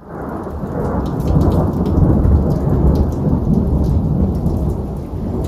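Loud thunder rolling through a rainstorm, building to its loudest about two seconds in and then easing, with rain falling throughout.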